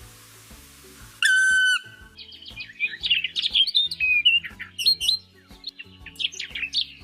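A bird calling over background music with a steady beat: one loud, steady whistle about a second in, then a rapid run of chirps and squawks that slide up and down in pitch.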